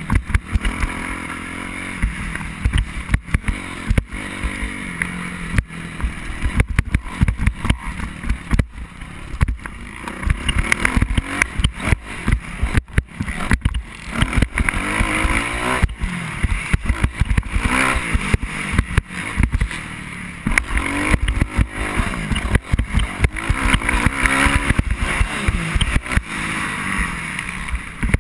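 Motocross dirt bike engine on the move, revving up and dropping again and again as the rider shifts and brakes through the track's turns. Heavy wind buffeting on the microphone and frequent short knocks from the bumpy track run through it.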